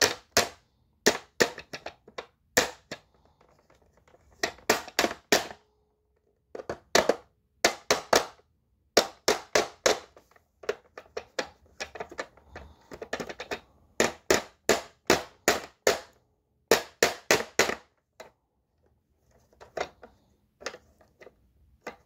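A hammer tapping the plastic wheel height adjuster of a Dirt Devil Dynamite Plus upright vacuum to knock it back into its seat. The sharp taps come in quick groups of two to four with short pauses between. They grow sparse and fainter after about 18 seconds.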